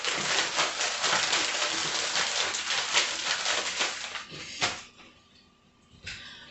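Plastic bag crinkling and rustling as it is handled, stopping about four and a half seconds in, followed by one brief rustle near the end.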